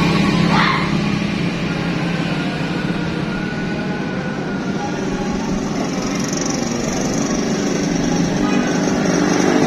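Outdoor street noise: a motor vehicle's engine hum that eases off about a second in, then a steady rush of traffic noise, with a faint high whine coming in about halfway.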